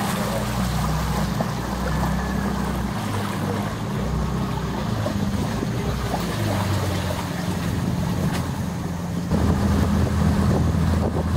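Small boat's outboard motor running steadily as the boat travels along the river, growing louder about nine seconds in.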